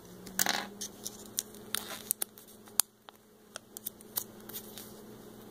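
Fingers unrolling a tiny rolled-up paper message: faint, scattered paper rustles and small clicks, the loudest rustle about half a second in.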